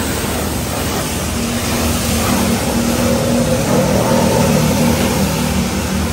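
Car-wash pressure washer running: a steady hiss of spraying water over the hum of its motor.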